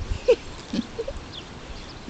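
A young pig giving a few short, soft grunts, with faint high chirps behind.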